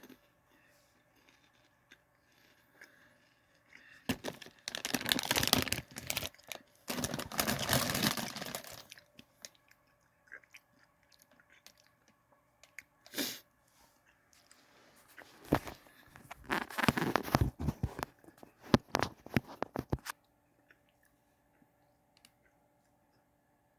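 Crunching and chewing crunchy cheese curls close to the microphone, in two spells: one starting about four seconds in, the other about fifteen seconds in.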